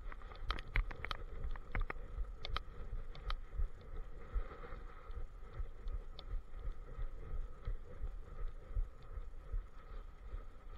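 Handling noise from a camera strapped to a walking German shepherd: uneven low bumps and rustling with each step, and a run of sharp clicks in the first few seconds.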